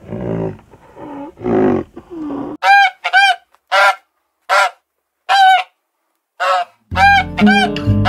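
Animal calls: a few lower, rougher calls at first, then a string of about seven short, high calls spaced with silence between them. Guitar music comes in near the end.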